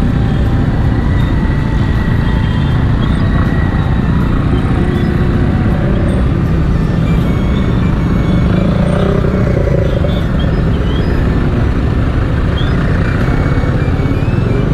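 TVS Apache 200 motorcycle's single-cylinder engine running at low speed in town traffic, heard from the bike itself along with steady road and traffic noise.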